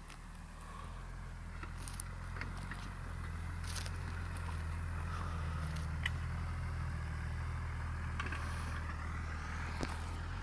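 Deutz-Fahr Agrotron 6.45 S tractor's diesel engine running steadily under load while pulling a plough, growing louder over the first few seconds, with a few faint clicks and rattles.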